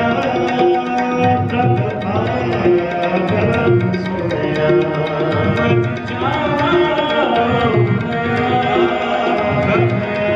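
Sikh kirtan music: two Nagi harmoniums holding sustained reed chords and melody over a tabla keeping a steady rhythm.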